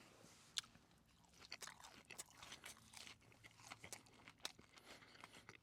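Close-up chewing of a breaded fried chicken tender dipped in sauce: irregular crunches and wet mouth clicks, with one sharper crunch about half a second in.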